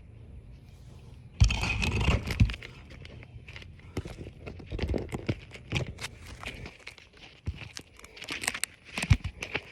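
Asphalt roof shingles being handled: crinkling and scraping, with a longer scrape about a second and a half in and irregular knocks and taps throughout.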